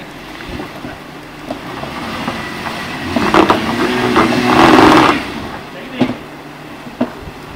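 2015 Jeep Wrangler JK's 3.6-litre V6 revving up under load for about two seconds midway as it climbs a rocky ledge, its 33-inch General Grabber tires scrabbling and throwing dirt. Two sharp knocks follow near the end.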